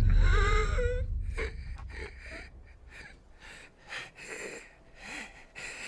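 A man's laboured gasping and wheezing breaths with a wavering groan, the sound of a dying man struggling for air, over a low rumble that fades after the first second or two.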